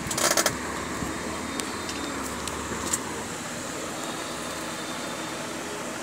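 Steady background drone, with a short rustle just after the start and a few light clicks and taps over the next couple of seconds.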